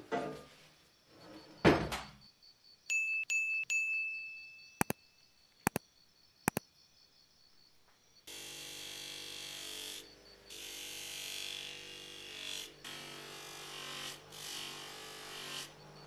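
A swish and a heavy thunk, then three short chime-like dings and a few sharp clicks. About eight seconds in, an electric bench grinder with a buffing wheel is running steadily with a hum and a hiss, swelling and easing as a Zippo lighter's inner case is pressed against the wheel for polishing.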